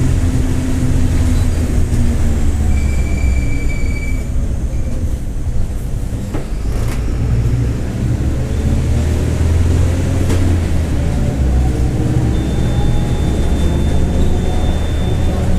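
Mercedes-Benz OF-1721 BlueTec 5 city bus heard on board, its diesel engine falling in pitch as the bus slows, then rising steadily through a long pull-away from about halfway in. The differential growls under the engine, and a couple of sharp clicks come in the middle.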